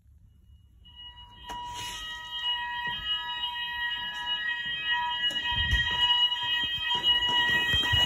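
Building fire alarm sounders starting up about a second in after the manual call point has been pressed, then sounding on as a loud, steady electronic tone made of several high pitches at once.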